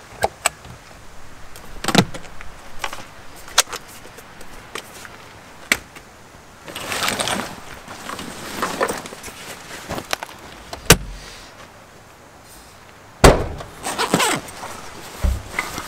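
Gear being handled at the open rear of a camper van: a series of clicks and knocks, with two loud thuds in the second half, and stretches of rustling as a fabric camera backpack is pulled out, set down on a table and opened.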